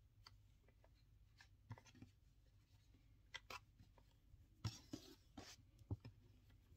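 Faint rustling and scattered light ticks of cotton macrame cord being handled and pulled into knots over a wooden tabletop, with a few louder brushes about five seconds in.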